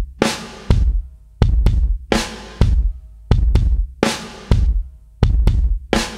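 Music with a steady drum-kit beat of bass drum and snare hits, repeating about every three-quarters of a second.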